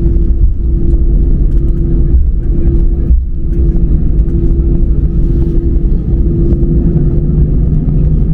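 Airliner engines during a takeoff: a loud, steady low rumble with a steady engine tone held through it.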